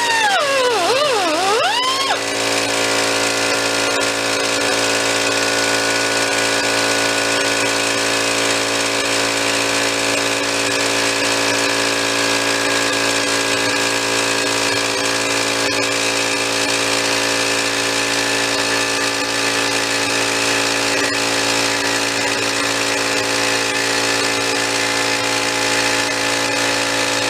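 An air compressor running steadily, a constant hum with several fixed pitches, feeding the air line for a die grinder. In the first two seconds a wavering whine dips in pitch and then cuts out.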